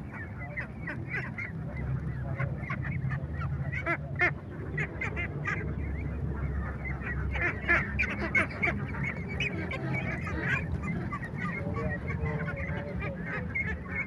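A crowded flock of young laying ducks quacking without pause, many short calls overlapping, over a steady low background rumble.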